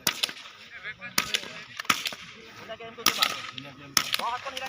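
Small-bore .22 rifles firing on a range: a string of sharp cracks at irregular intervals, about seven in all, some in quick pairs.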